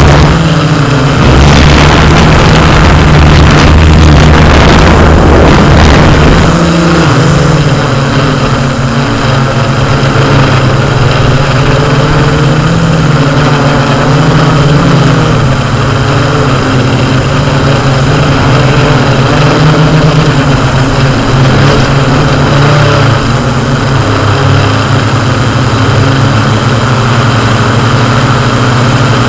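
Yuneec Q500 quadcopter's electric motors and propellers running steadily in flight, a loud, even hum. A deeper rumble underneath for the first few seconds drops away about six seconds in.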